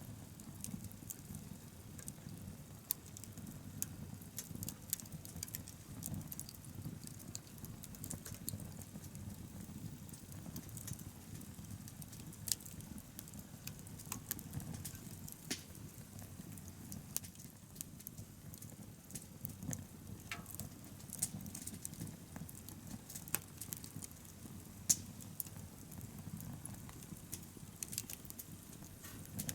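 Wood bonfire crackling: frequent scattered sharp pops and snaps over a steady low rumble.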